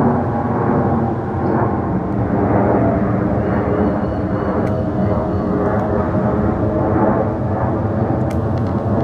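An Airbus A380's four Rolls-Royce Trent 900 turbofans passing overhead: a loud, steady jet rumble with steady tones running through it.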